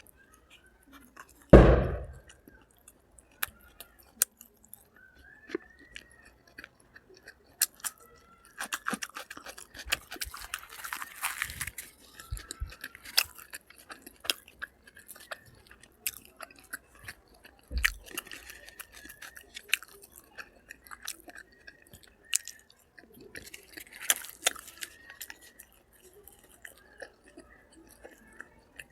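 Close-up eating sounds: chewing and crunching food, with many small wet clicks and smacks and two longer stretches of crunching. A single loud thump comes about a second and a half in.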